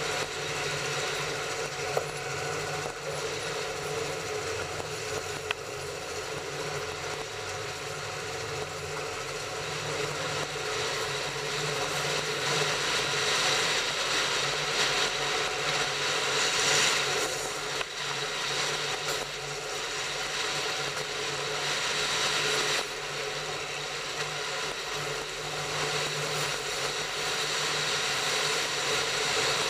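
Train running along the track: a steady mechanical rumble and rattle of wheels and running gear, with a sharp click about two seconds in and another a few seconds later.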